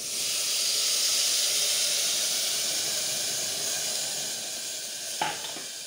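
Water poured into a hot aluminium pressure cooker onto butter-fried black sticky rice, hissing into steam as it hits the hot pot. The hiss starts suddenly and slowly dies down, with a short knock about five seconds in.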